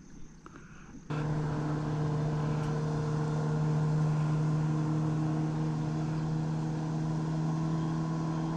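A boat's motor running with a steady, even hum, coming in suddenly about a second in.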